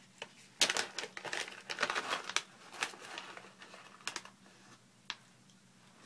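Crinkling of a resealable snack pouch being handled and opened: a dense run of crackles for a couple of seconds, then a few single crackles.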